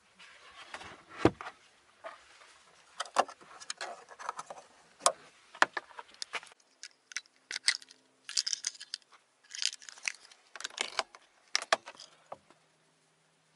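Handling noise in a hatchback's boot: the boot floor panel being lifted and let down over the spare wheel, with a low thump about a second in. Then comes a long string of sharp clicks, knocks and rustles.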